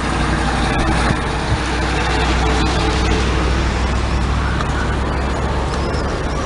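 Road traffic on a city street: a steady low rumble with a wash of passing cars. A few high chirps come in near the end.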